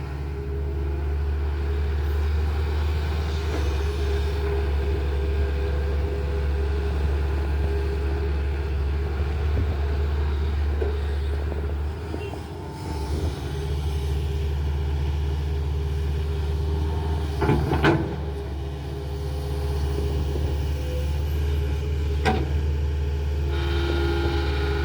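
Tata Hitachi excavator's diesel engine running steadily with a low rumble, dipping briefly about halfway through. Sharp knocks come about three quarters of the way in, the loudest moment, and once more shortly after.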